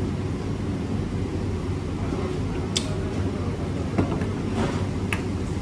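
Steady low mechanical hum of the room, with a few short sharp clicks and smacks of someone eating by hand, about three seconds in and again near the end.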